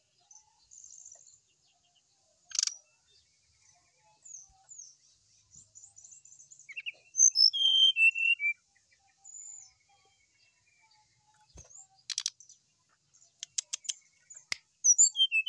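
Brown-chested jungle flycatcher singing in short phrases of quick, high, varied notes, with pauses between them; the liveliest run comes about halfway through. A few sharp ticks sound near the end.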